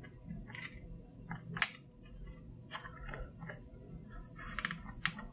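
Scattered small clicks and scrapes of a pry tool against the plastic case of a power bank as its glued top cover is worked loose, coming quicker near the end.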